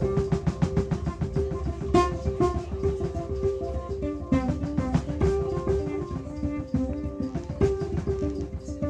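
Live instrumental music: a cello plucked pizzicato in a repeating bass line, with a drum kit keeping a steady beat of quick hits.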